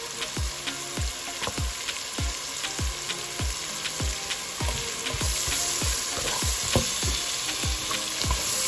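Carrots, onions and thyme sizzling in hot curry oil in a pot while a spoon stirs them. Under the sizzle runs a steady low thump about twice a second.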